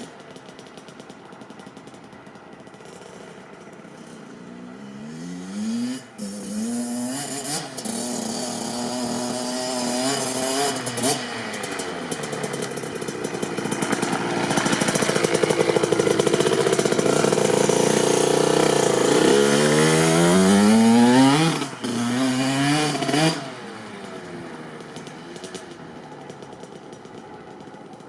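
Kawasaki KX65's small single-cylinder two-stroke engine revving up in several rising pulls, each cut off by a sudden drop in pitch, loudest about halfway through, then settling to a quieter steady run for the last few seconds.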